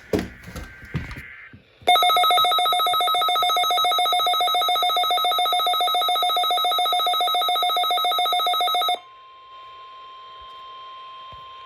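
Weather radio receiver's alert alarm, set off by the weekly test: after a short warbling data burst at the start, a loud, rapidly pulsing electronic beeping sounds for about seven seconds. When it stops, the radio's own audio comes through with a faint steady warning alarm tone.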